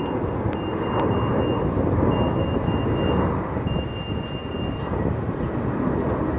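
Steady jet roar of a twin-engine widebody airliner climbing out after takeoff. A high beep sounds in roughly one-second pulses over the first five seconds.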